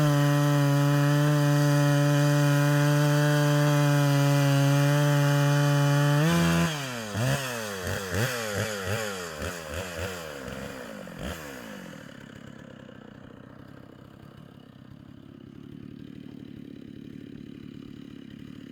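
Stihl MS 660 two-stroke chainsaw on an Alaskan chainsaw mill with a ripping chain, running at a steady high pitch at full throttle through a cedar cut. About six seconds in the engine drops in pitch and is blipped up and down several times. Around twelve seconds it settles much quieter.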